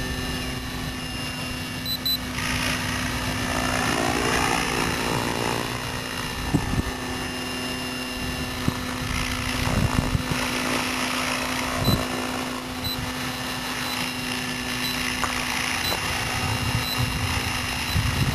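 Hurricane E550 electric RC helicopter flying, its rotor and motor making a steady hum, with a rushing noise that swells twice.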